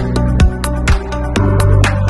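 Electronic background music with a steady, fast drum beat over a sustained bass line.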